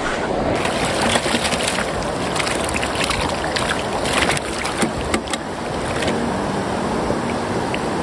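Steady rush of river water, with scattered short clicks over the first five seconds.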